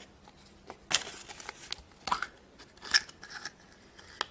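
Hands opening a toy surprise egg and its packaging: scattered plastic clicks, crackles and brief rustles.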